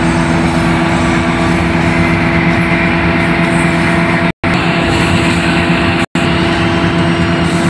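Hino AK8 bus engine and road noise heard from inside the cab at highway cruising speed: a steady drone with a constant low hum. The sound cuts out completely twice, very briefly, about four and six seconds in.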